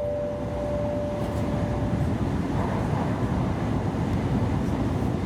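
Steady running noise inside a moving N700S Shinkansen car: a low rumble and rush. The last note of the on-board chime rings on and fades out about two seconds in.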